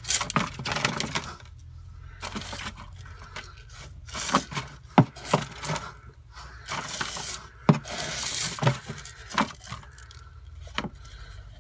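Rustling and scraping inside a chicken-feed bin as it is searched by hand to catch a mouse, broken by several sharp knocks against the bin's sides.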